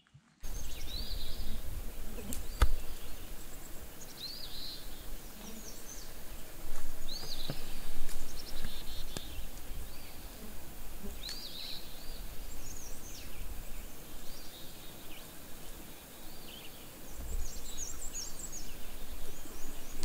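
Lakeside outdoor ambience: several songbirds giving short chirps and calls throughout, over a low gusting rumble, with one sharp click about two and a half seconds in.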